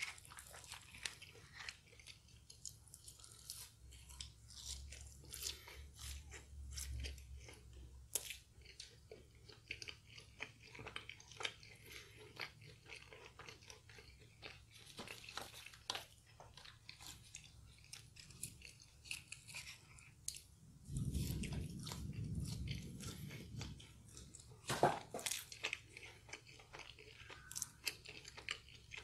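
Close-miked chewing and crunching of crispy fried food, many small irregular crunches. A low muffled sound lasts about two seconds past the two-thirds mark, and one sharp, louder crunch follows shortly after.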